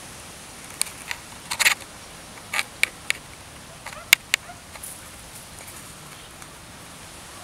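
Dry leaves, twigs and straw crackling in a quick irregular series of short, sharp rustles as cats scuffle and pounce on the ground, over a steady outdoor hiss.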